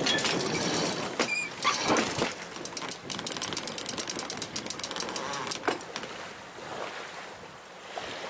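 A sailboat halyard is hauled by hand at the mast, with knocks and a brief squeak of rope through the gear. Then a mast winch is cranked with a winch handle, its pawls ratcheting in a fast run of clicks, about ten a second, for a couple of seconds as the sail is tensioned.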